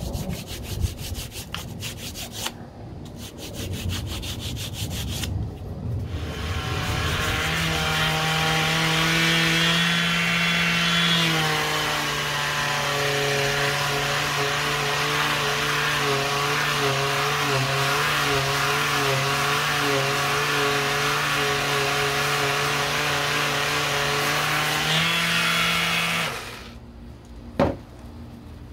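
Quick back-and-forth strokes of a hand sanding stick on hardened fiberglass body filler (Bondo Glass). About six seconds in, a cordless detail sander starts and runs steadily with a whine, its pitch dropping a little about eleven seconds in. It stops near the end, followed by a single knock.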